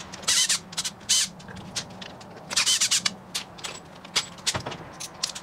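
Cordless drill/driver spinning out the outer clutch cover bolts of a two-stroke dirt bike engine in several short bursts, each bolt run loose in a fraction of a second.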